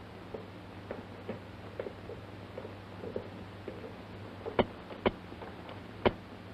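Light ticking and tapping, then three sharp clicks about half a second to a second apart near the end, from hands working at a mannequin's base plate, over a steady low soundtrack hum.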